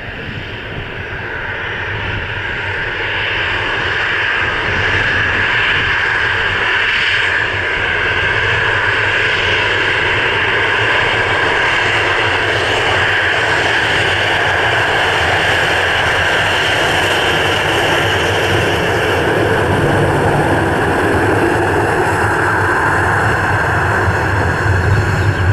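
Boeing 737-800 CFM56 jet engines: a loud, steady whine over a low rumble. It grows louder over the first few seconds as a landing 737 rolls out, then after a brief break about 7 seconds in it holds steady as a 737-800 taxis close by.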